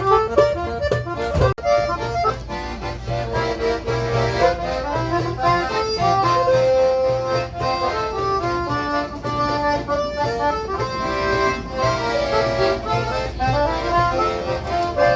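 Accordion playing a Christmas tune with melody and chords, over the steady low rumble of a moving District line Underground train.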